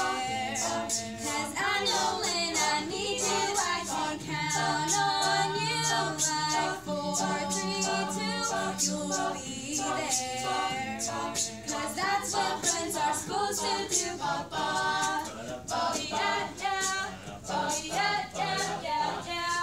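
High school a cappella choir of mixed voices singing in harmony, over a steady beat of sharp clicks.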